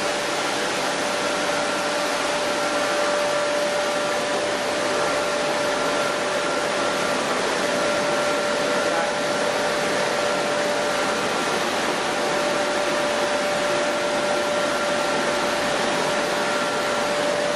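Chili powder milling machinery running steadily: an even rushing noise with a constant whine and no change in speed.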